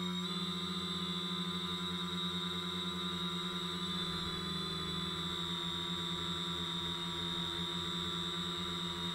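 Quadcopter's electric motors and propellers running in flight, a steady hum with a high whine over it, picked up by the action camera mounted on the frame.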